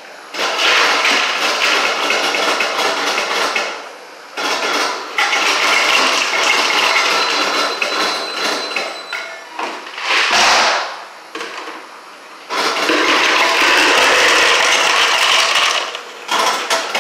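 Self-serve ice dispenser dropping ice cubes into a paper cup: a loud clattering rattle of ice down the chute, in several runs of a few seconds each with short pauses between.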